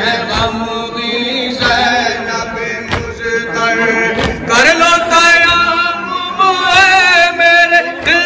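A male voice chants an Urdu noha, a Muharram lament, in a drawn-out wavering melody. Sharp hand strikes of chest-beating (matam) keep time with it, about one every second and a bit.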